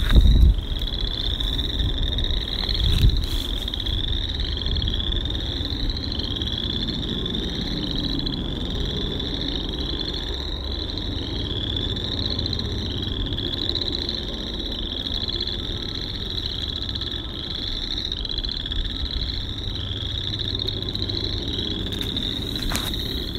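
A chorus of frogs trilling: many overlapping pulsed trills, each about a second long and rising slightly, repeating without a break. A couple of low thumps come in the first few seconds.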